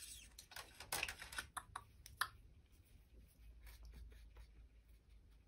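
A few faint, light clicks and taps of small painting supplies being handled, a gesso pot and a brush, mostly in the first half, the sharpest about two seconds in.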